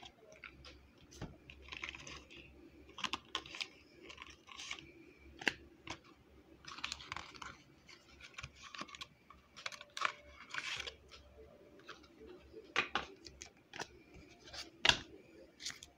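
Tarot cards being handled: irregular sharp card clicks and taps mixed with short papery slides and swishes as cards are flipped and set down, the loudest tap near the end.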